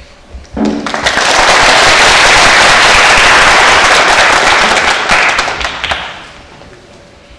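Audience applauding, starting just under a second in with a brief cheer, holding steady and dying away about six seconds in.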